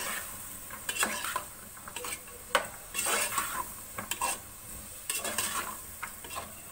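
Boiled white chickpeas being stirred into a sizzling spice masala in a cooking pot: irregular scraping strokes of the stirring utensil, one or two a second, over a steady sizzle.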